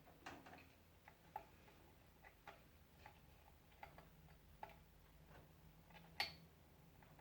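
Faint, irregular small clicks and taps from handling PC parts and cable connectors, about a dozen over seven seconds, the sharpest click about six seconds in. A faint low hum sits under them.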